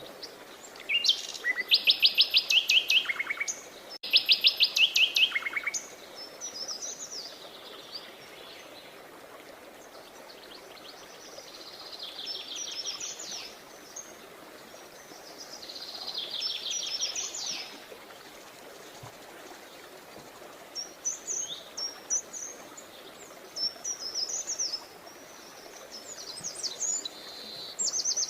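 Songbirds singing. Two loud, rapid trills come in the first few seconds, softer trills follow midway, and short high chirps come near the end, over a faint steady background hiss.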